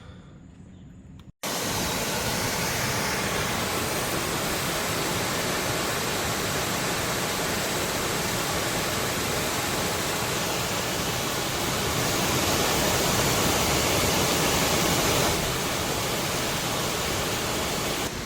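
A loud, steady rushing noise with no tones in it, starting abruptly about a second and a half in and getting a little louder for a few seconds past the middle.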